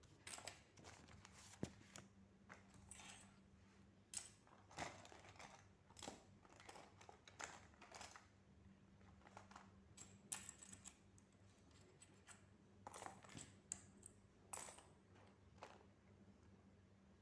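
Faint, irregular rustling and clicking of papers being handled, with a low steady hum underneath.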